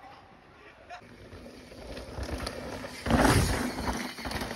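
Mountain bike ridden past close by on a dirt trail, its tyres rolling and skidding over the dirt, building up and loudest about three seconds in as it goes by.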